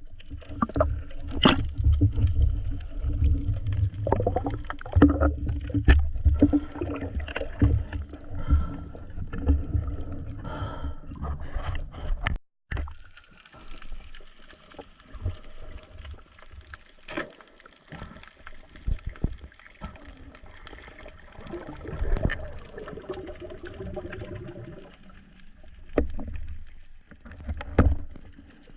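Water sloshing and gurgling with scattered knocks, over a low rumble for the first half. The sound cuts out briefly near the middle, and the second half is quieter.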